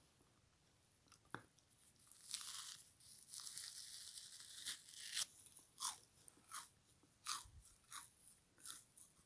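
A frozen foam kitchen sponge being bitten and chewed. About two seconds in, a long icy crunching bite starts; after that come regular chewing crunches, about three every two seconds.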